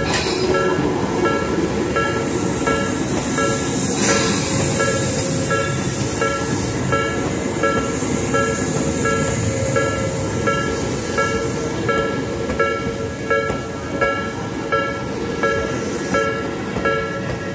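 Level-crossing alarm ringing in steady repeated electronic dings, about one and a half a second, while a Tobu 10000 series electric train runs past with a continuous rumble and hiss.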